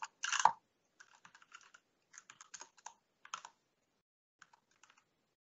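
Computer keyboard typing in short runs of quick keystrokes with pauses between them, faint, after a louder thump just at the start.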